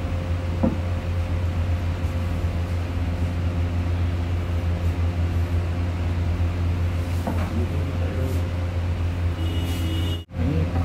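A steady low mechanical hum that drops out briefly near the end.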